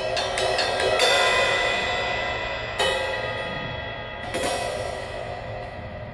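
Drum kit played solo: a quick run of strokes, then three loud cymbal crashes, each left to ring and fade, with drum hits between them, before quicker strokes pick up again near the end.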